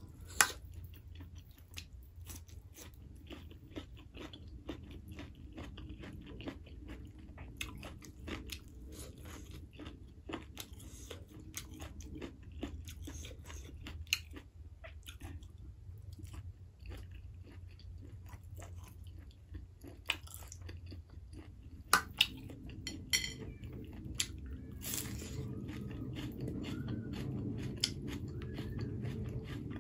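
Close-miked eating sounds: chewing with wet mouth clicks and smacks and occasional crunches, as a rice and pork curry meal is eaten by hand. A few sharper smacks stand out about 22 seconds in, and a low background hum grows louder in the last few seconds.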